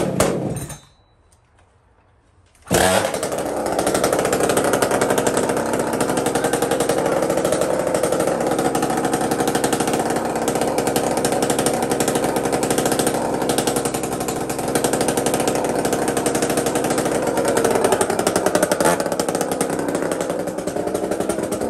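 Husqvarna 372 two-stroke chainsaw, just fitted with a welded-up muffler: after a short noise and about two seconds of quiet, the engine catches and settles into a steady idle. The idle has changed little with the modified muffler.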